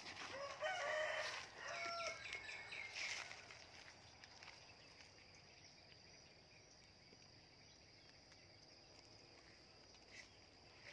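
A rooster crowing in the first few seconds, then only a faint steady high tone over quiet background.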